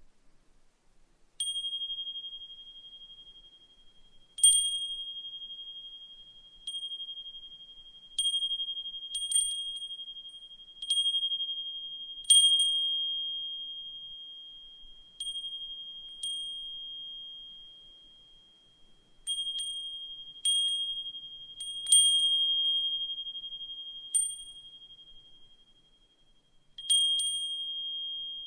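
Brass suzumushi furin, a Japanese wind chime with a cricket-like voice, struck irregularly by its clapper about fifteen times, starting about a second and a half in. Each strike gives a high, clear ring that lingers and fades slowly, with a brief brighter overtone at the moment of the strike.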